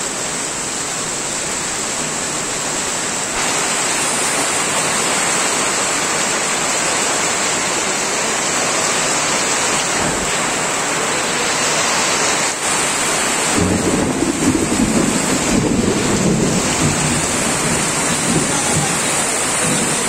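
Heavy rain pouring down onto a road, trees and tin sheeting, a steady dense hiss. About two-thirds through, a low rumble joins in for a few seconds.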